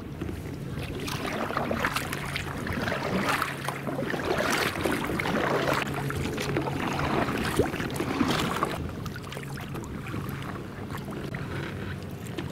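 Water splashing and rushing along a small boat's hull, swelling and easing over the first several seconds, then quieter near the end. A steady low hum runs underneath.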